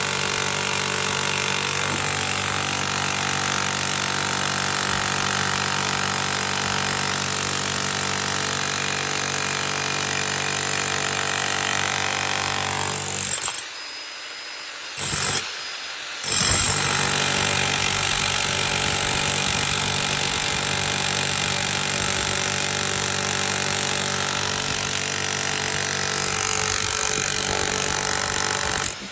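Power jackhammer breaking up a concrete slab, running steadily; it stops twice in quick succession about halfway through, then carries on.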